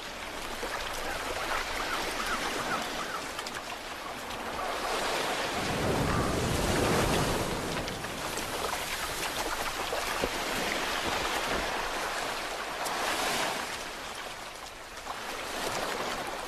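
Surf breaking and washing up a gravel beach, swelling louder with each wave every few seconds.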